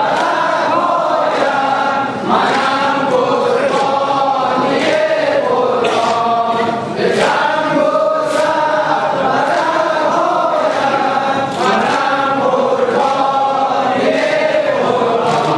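A hall of men chanting a mourning lament together in unison. Sharp strikes of hands beating chests (sineh zani) come about once a second, keeping the beat.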